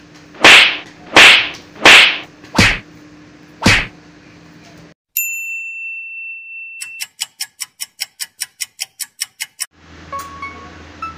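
A quick run of five loud slaps in the first four seconds as a man is beaten. After a short silence comes a steady high electronic beep, then a rapid even run of sharp ticks, about six a second, like a title-card sound effect.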